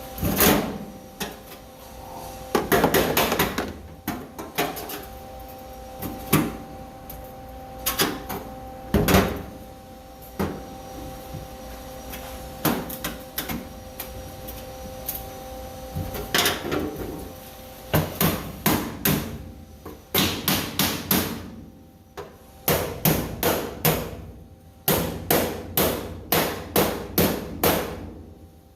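Hammer blows on sheet steel: scattered single strikes, then quick runs of blows about three a second in the second half, with a faint steady hum underneath.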